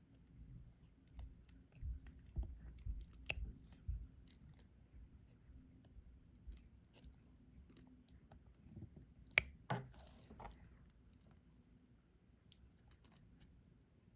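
Faint, irregular clicks and taps of a diamond-painting pen picking up small resin drills and pressing them onto the sticky canvas, with one sharper click about nine seconds in.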